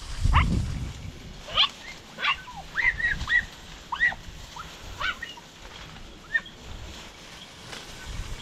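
Podenco hunting dogs yelping out of sight in the cane thicket: about a dozen short, high-pitched yelps in quick irregular succession, the hounds giving tongue as they work rabbits in the cover. A short low rumble comes right at the start.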